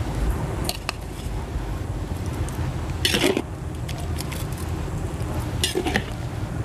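Metal spatula scraping and knocking against a wide metal wok while grated coconut is stirred into a wet chilli spice mixture. There are a few separate strokes, the loudest about three seconds in, over a steady low rumble.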